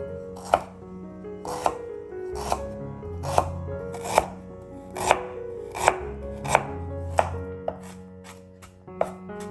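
A knife chopping food on a cutting board: about ten separate cuts at a slow, unhurried pace, roughly one a second, with a longer pause before the last one.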